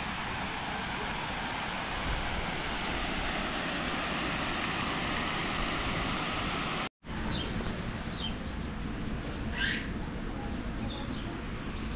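A steady rushing noise, then after a brief cut about seven seconds in, birds chirping in short, high calls over a steady background noise.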